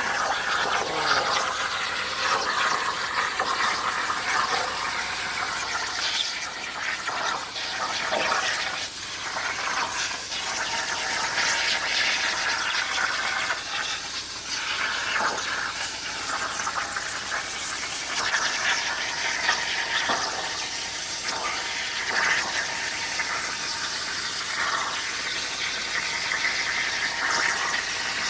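CNC plasma cutter's torch cutting, a loud steady hiss with a high squealing edge, dipping briefly about six seconds in.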